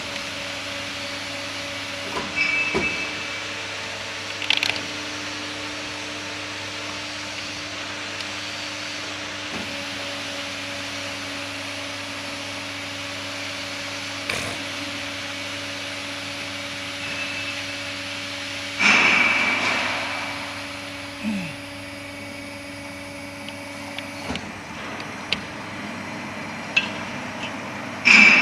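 CNC aluminum profile arc-bending machine running with a steady motor hum that stops about 24 seconds in, with scattered knocks and a louder screech about two-thirds of the way through that fades over about a second.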